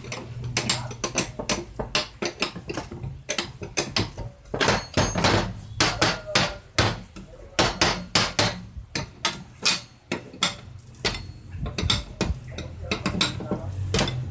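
Steel wrench clinking and knocking against a nut and the steel fixture it is turning, in a quick, irregular run of metal-on-metal clanks.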